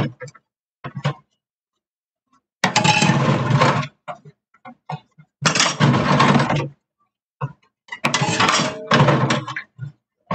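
Water from a kitchen sink tap running in three short bursts of a little over a second each, with light clinks of dishes between.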